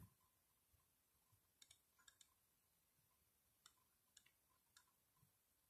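Near silence, with several very faint computer mouse clicks spread through it.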